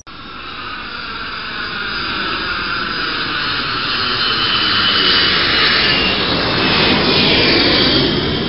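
Jet airliner engines running: a dense rushing sound that builds over the first few seconds and then holds loud, with a high whine slowly falling in pitch.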